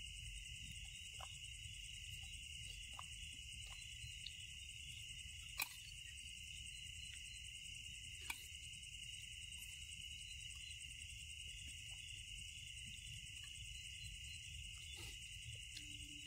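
Night insect chorus of crickets, a steady high-pitched trilling, over a low rumble, with two sharp clicks about five and a half and eight seconds in.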